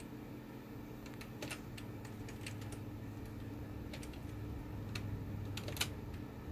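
A few faint, scattered clicks and light handling noises over a steady low hum.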